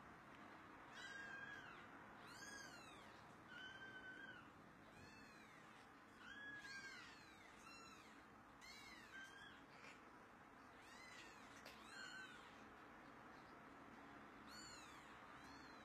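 Very young kittens mewing: faint, thin, high-pitched mews, about a dozen short calls that each rise and fall in pitch, coming roughly once a second with brief pauses.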